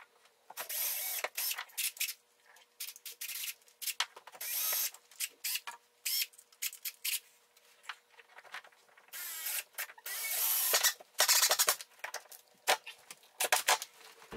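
Cordless drill boring a hole into the wall through a metal mounting bracket, run in short stop-start bursts of the trigger, with the longest run of drilling about two thirds of the way in.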